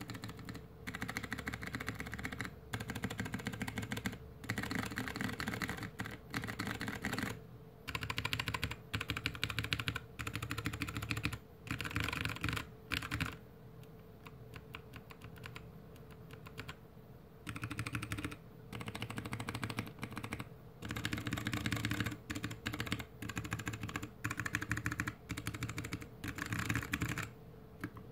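GK61X mechanical keyboard with Kailh BOX Mute Jade switches, a stainless steel plate in a plastic case, and DSA keycaps, typed on a bare desk. Alpha and modifier keys are pressed in runs of rapid keystrokes with short pauses between them, and there is a longer lull about halfway through.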